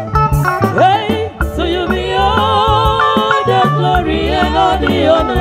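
Live band music played loud through a PA: drum kit and a pulsing bass, with women singing into microphones from about a second and a half in.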